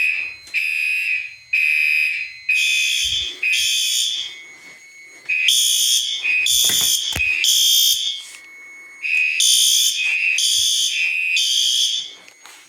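Fire alarm horns sounding together in repeated short blasts, roughly one a second and not quite in step, with a high, shrill tone: the system is in alarm, set off by magnet-testing a heat detector.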